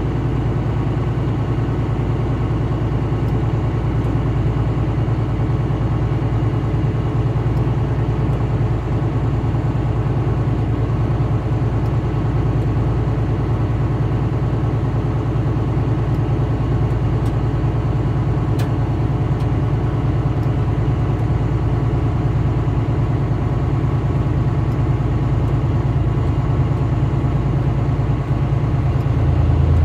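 Steady engine and road drone of a vehicle cruising on the interstate, an even low hum with no change in speed.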